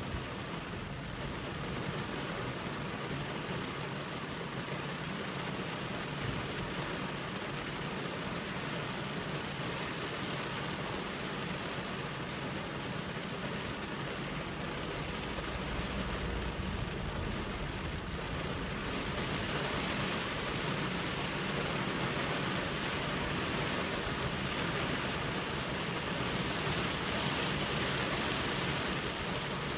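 Heavy rain beating on a car's windscreen, heard from inside the cabin as a steady hiss that grows a little heavier about two-thirds of the way through.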